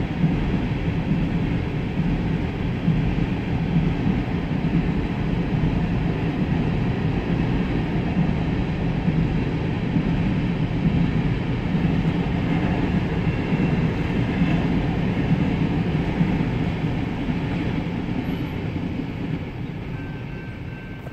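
Coal train's freight cars rolling past at a grade crossing, a steady rumble of wheels on rail, heard from inside a car. It fades away near the end as the last car clears the crossing.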